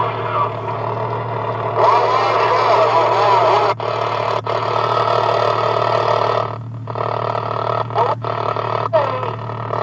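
CB radio receiver hissing with static and warbling, garbled distant transmissions, cutting out sharply several times and for about half a second near the seven-second mark. A steady low hum runs underneath, likely the Jeep's inline-six idling.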